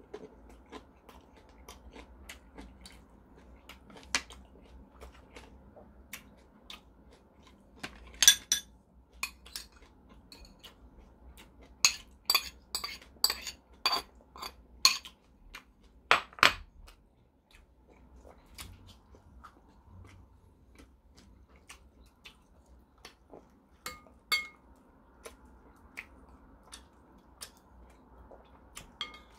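Metal spoon and chopsticks clinking and scraping against ceramic bowls. The loudest is a quick run of sharp clinks in the middle as the spoon scrapes and taps steamed rice out of a rice bowl into the malatang, with fewer, lighter clicks as the spoon stirs afterwards.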